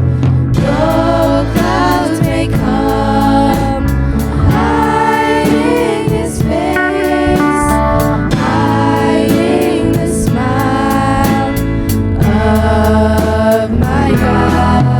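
Christian worship music: voices singing long, wavering held notes over a band with a steady drum beat.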